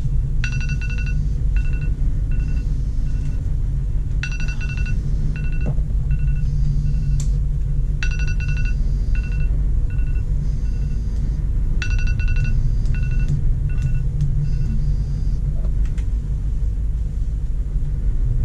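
A smartphone wake-up alarm beeping in repeating rounds, each a quick run of high beeps followed by slower, fading beeps, about every four seconds, until it stops about fifteen seconds in. Under it runs the steady low rumble of the small cargo ship's engine, heard inside the crew cabin.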